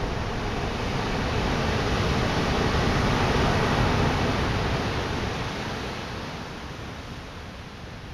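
Ocean surf breaking and rushing over rocks: a wash of noise that swells to a peak about three to four seconds in and then dies away.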